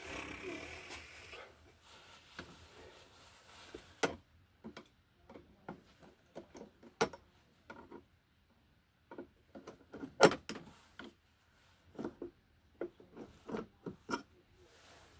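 Irregular clicks, taps and knocks of hands handling wiring and hardware in an electrical box. The sharpest knocks come about four, seven and ten seconds in, the one near ten seconds the loudest.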